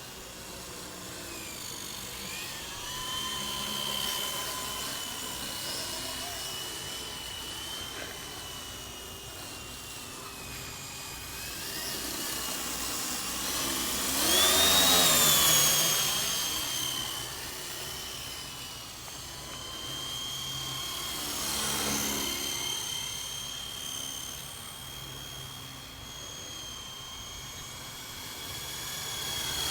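WLtoys V912 fixed-pitch RC helicopter in flight: a steady high-pitched whine from its electric motors and rotors, drifting up and down in pitch as the throttle changes. It grows loud about halfway through, the pitch rising then falling as it passes close, and swells again more briefly twice later.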